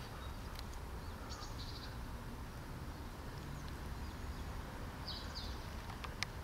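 Outdoor background with a steady low rumble and two short spells of faint, high bird chirping, about a second in and about five seconds in; a single sharp click near the end.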